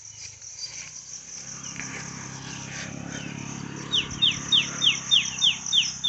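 Insects trilling steadily high in the background; from about four seconds in, a loud run of sharp chirps, each falling in pitch, about three a second.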